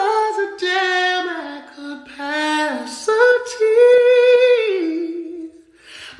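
A man singing unaccompanied in a high voice, sliding between notes in quick runs, then holding a long note that falls away about five seconds in.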